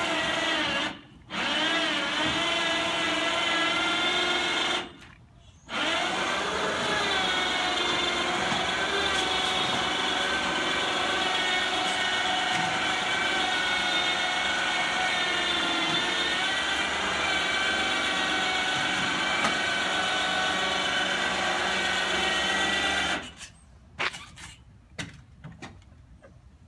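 The motor of a truck-bed motorcycle loader running with a steady whine. It stops briefly about a second in and again around five seconds, then cuts off near the end, followed by a few clunks.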